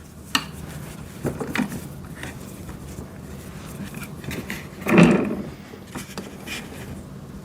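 Scattered metallic clicks and clinks of a wrench on the wheel bolts of a wood chipper's axle as they are tightened, with a louder knock about five seconds in.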